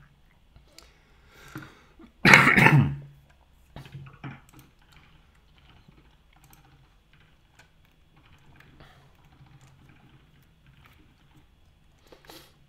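Faint computer keyboard and mouse clicks over a low steady hum, with one short loud noise about two seconds in.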